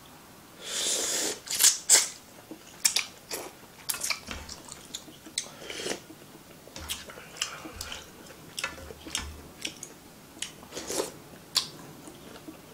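A person slurping ramen noodles, with a long loud slurp about half a second in, then many short slurps, sips of broth from a spoon and wet chewing and lip-smacking sounds.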